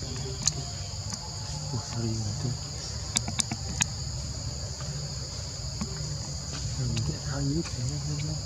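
Steady chorus of forest insects, crickets or cicadas, holding two high even pitches throughout, over a low hum, with a few sharp clicks about three to four seconds in.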